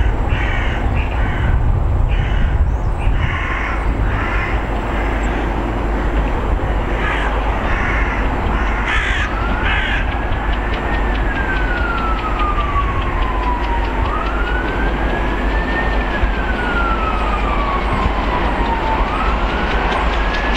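Repeated harsh crow-like caws through the first half, then a siren wailing in long rises and slow falls, each sweep about five seconds, over a steady low rumble.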